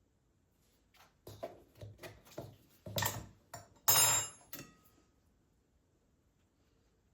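Kitchenware handled: a run of light knocks and clatter, with one louder, ringing clink about four seconds in.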